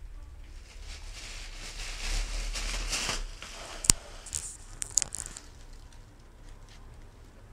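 Thin plastic shopping bag rustling and crinkling as a cat noses and pushes its head into it, heaviest in the first half, with one sharp click about four seconds in and a few lighter crinkles after it.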